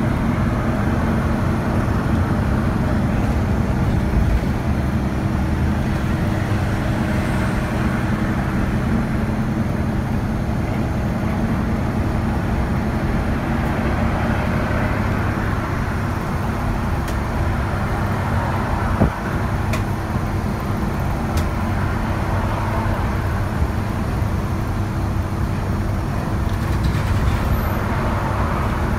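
Steady engine hum and road noise inside a route bus cruising on an expressway, with one short knock about two-thirds of the way through.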